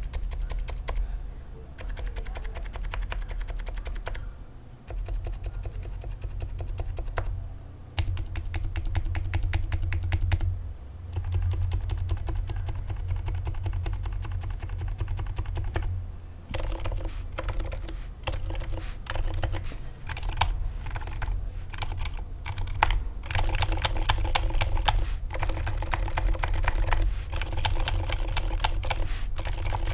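Typing on a Drop Ctrl high-profile mechanical keyboard modded for quiet, with lubed and filmed Durock Silent Dolphin silenced linear switches and a foam-filled case. The keystrokes come in fast runs broken by brief pauses.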